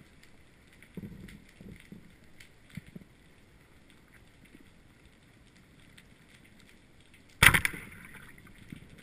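Band-powered speargun firing underwater, heard through the camera's waterproof housing: a sudden sharp crack with a rush that fades over about half a second, a little past the middle. Before it, only faint water movement and a few soft knocks.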